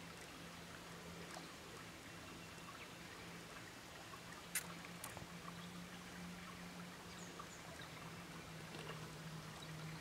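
Shallow stream trickling faintly over rocks, with a low steady hum underneath. A sharp click comes about halfway through, with a fainter one just after it, and a couple of faint high bird chirps follow a little later.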